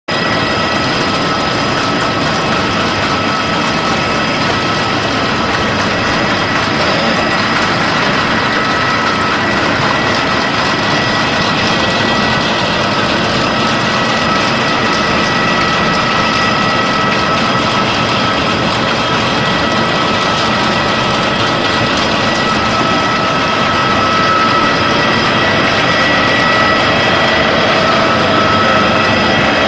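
Wood sawdust pellet press machine running steadily, a dense, even mechanical noise with a few steady high-pitched whines over it.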